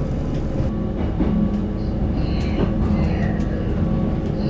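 GTW 2/6 diesel railcar heard from inside, running out through station trackwork: a steady diesel drone under wheel-on-rail noise, with short high squeals coming and going from about two seconds in.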